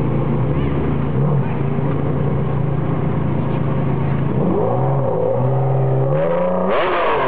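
Ferrari Enzo's V12 idling steadily, then revved: a short rise and fall in pitch about four and a half seconds in, and a higher, longer rev near the end.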